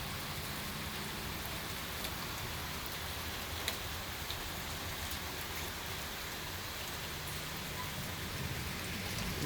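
Steady rain falling and splashing on surfaces during a thunderstorm, with a few sharp single clicks of drops landing close by.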